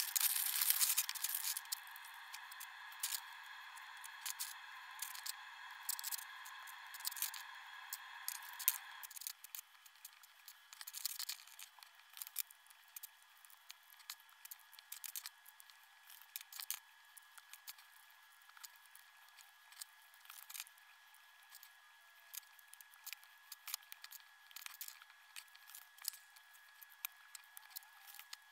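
Plastic LEGO bricks being handled and snapped together: scattered small clicks and clatters, sounding thin with no low end. A faint steady whine under them stops about nine seconds in.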